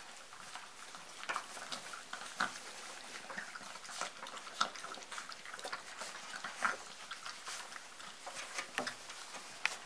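A litter of golden retriever puppies eating from a steel bowl and scrambling about on wood shavings: many small irregular clicks, taps and scuffles.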